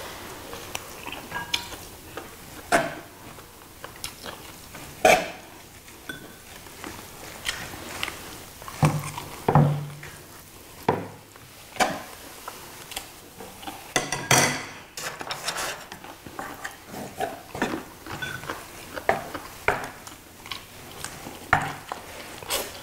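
Scattered clinks and scrapes of metal tongs and chopsticks against plates as food is served and eaten, with chewing noises between.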